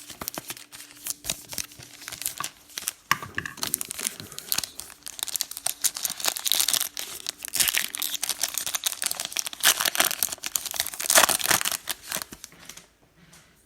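Trading card pack wrappers being torn open and crinkled in the hands, a dense run of crackling and rustling that stops near the end.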